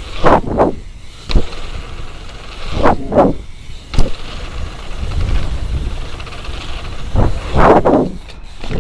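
Wind rushing over the microphone in repeated surges and a BMX bike's tyres rumbling over a dirt trail on a fast run, with two sharp clacks from the bike, about a second and a half in and about four seconds in.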